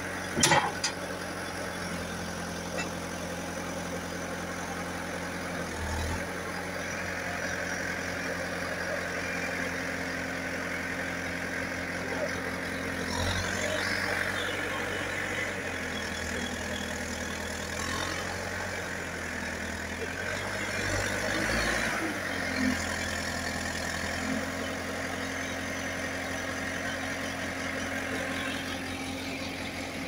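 JCB 3CX backhoe loader's diesel engine running steadily while the loader is worked and the machine moves, its note shifting up and down a few times. A sharp knock about half a second in is the loudest sound.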